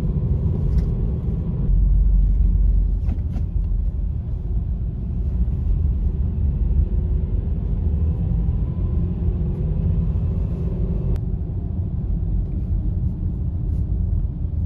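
A car driving on a road, giving a steady low rumble of tyres and engine.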